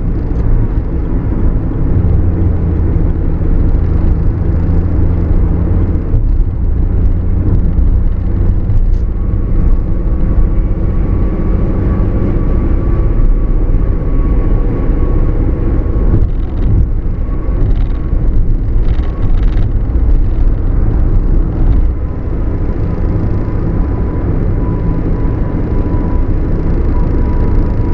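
Road noise inside a moving car on the freeway: a steady low rumble from the tyres and engine. A faint steady whine comes in about ten seconds in.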